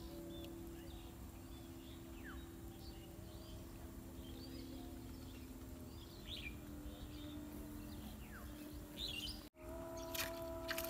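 Birds chirping, short calls scattered throughout over a steady low drone. The sound cuts out abruptly for a moment near the end.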